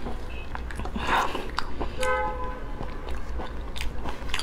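Eating cooked spiny lobster: scattered clicks and cracks of the shell being pulled apart by hand, and chewing.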